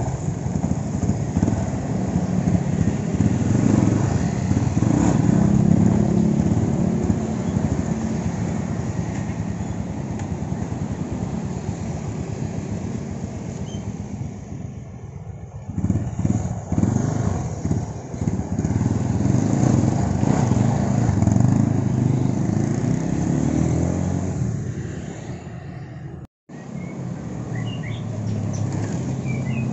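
Yamaha Scorpio 225's single-cylinder engine running, surging unevenly for a few seconds about halfway through. After a brief dropout near the end, street traffic with passing motorcycles.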